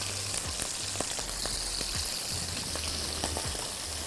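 Browned beef cubes sizzling in a hot frying pan: a steady hiss with many small crackles and pops.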